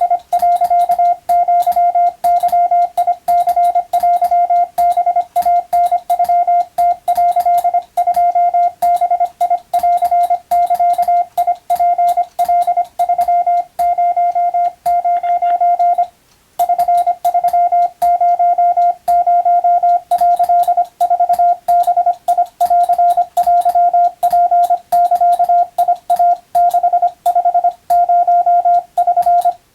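Morse code (CW) tone: a single steady beep keyed on and off in fast dots and dashes, with faint clicks at each keying, as sent in radiotelegraph receiving practice. The keying stops briefly about halfway through, then carries on.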